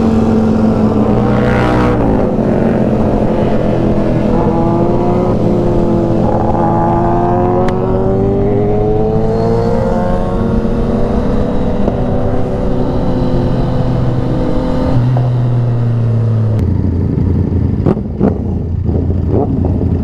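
Motorcycle engines on the road, their pitch rising and then falling over several seconds as they accelerate and ease off, settling into a steady low note near the end.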